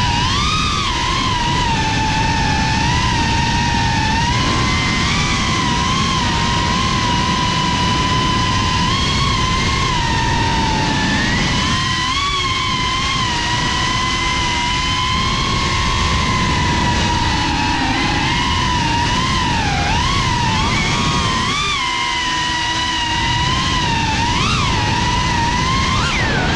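Geprc Cinelog 35 FPV drone's brushless motors and propellers whining at a high pitch that wavers and swoops up and down with the throttle, over a steady rush of propeller wash.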